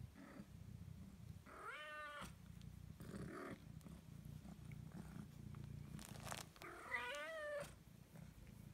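Ragdoll cat purring steadily, with two short meows: one about two seconds in, and a louder one about seven seconds in.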